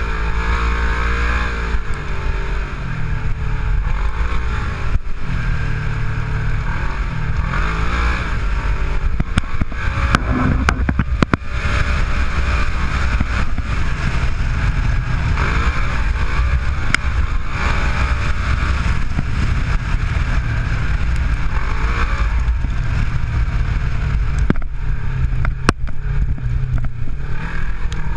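Side-by-side UTV's fuel-injected 900 cc engine running under way on a bumpy dirt track, its pitch rising and falling repeatedly as the throttle is worked, with a steady rushing noise and scattered knocks from the rough ground.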